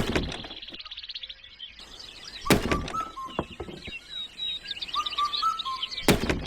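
Birds chirping in short calls and trills, broken by sharp knocks: one at the start, one about two and a half seconds in, and one near the end.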